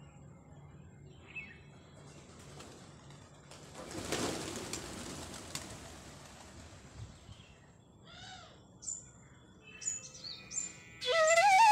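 A flock of domestic pigeons taking off together, a rush of wingbeats about four seconds in that fades over a couple of seconds. A few short, high bird chirps follow near the end, and flute music begins just before the end.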